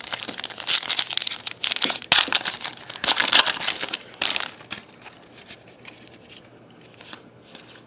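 The wrapper of a Hoops basketball trading-card pack crinkling loudly as it is torn open and pulled off the cards, for about the first four and a half seconds; after that only a few faint clicks of card handling.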